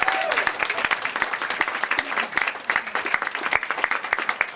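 Audience applauding, many hands clapping at once, thinning out gradually toward the end.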